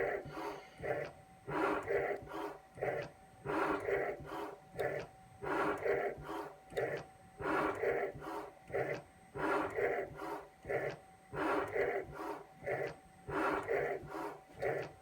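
CNC milling machine running a shaping program with a fixed cutter, scraping in repeated shallow strokes across a flat flex cable's Teflon-like coating. The strokes come as short bursts of noise, a little over one a second, over a faint steady machine tone.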